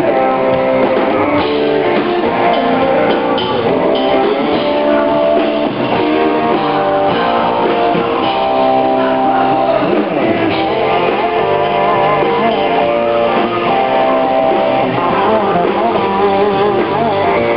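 Live country band playing: strummed acoustic guitar and drum kit, with a man singing lead.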